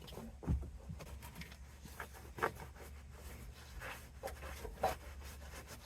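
Scattered light taps and rustles over a low steady hum, with the sharpest taps about half a second in, midway, and near the end.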